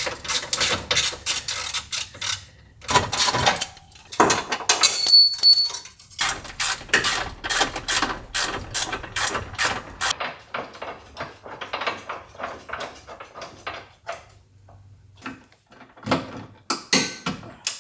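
Hand ratchet wrench clicking in quick runs of strokes as subframe bolts are run down snug. The clicking is dense for the first ten seconds or so, then comes in sparser, fainter runs.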